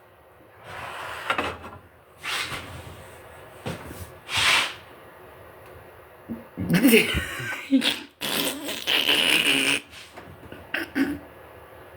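A run of fart noises: several short bursts, with the loudest and longest ones in the second half, some carrying a low buzzing rasp.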